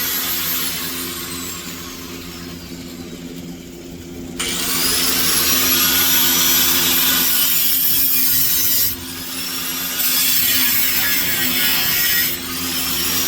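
Angle grinder cutting metal, a loud hissing grind with a high motor whine. The whine slowly winds down over the first few seconds, then the grinder is restarted and spins back up; it is let off briefly and spun up again twice more near the end.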